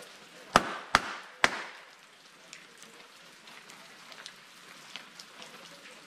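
Three sharp hand claps about half a second apart, ringing briefly under a rock overhang, followed by light water drops dripping and pattering.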